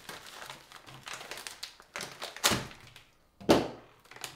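Laminated MRE food pouch rustling and crinkling as it is handled and opened, with several sharp knocks; the two loudest come about a second apart in the second half.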